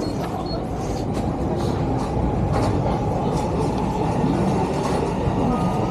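Train rumbling past, a steady heavy rumble with faint clicks of the wheels over rail joints.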